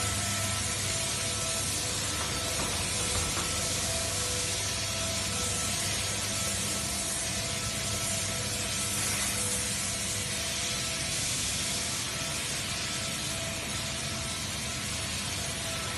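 Tissue-paper converting machinery running: a steady mechanical hiss and hum with a few steady whining tones, unchanging throughout.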